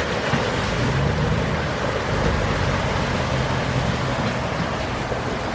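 Off-road vehicle fording a river: a steady rush and splash of water with a low engine hum underneath.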